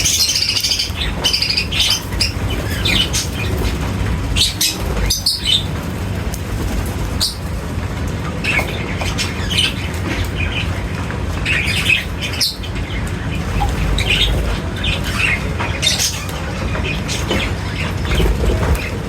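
A flock of birds chirping and squawking, with many short calls overlapping throughout over a steady low rumble.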